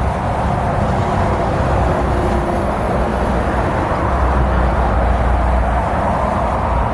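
Steady roar of multi-lane highway traffic, tyres and engines of passing cars and trucks, with a deeper rumble swelling about four seconds in.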